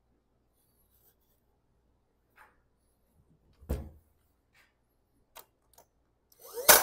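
A cordless finish nailer firing once near the end, a sharp loud shot driving a nail to tack a 2x4 roof beam onto the doghouse frame. About 3.7 seconds in there is a single quieter knock of wood, with a few faint clicks after it.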